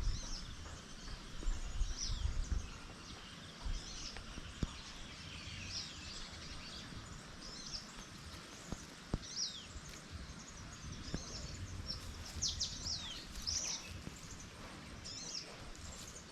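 Wild birds chirping: many short, high calls, most sliding down in pitch, scattered throughout and most frequent about twelve to fourteen seconds in, over a low rumble of wind noise.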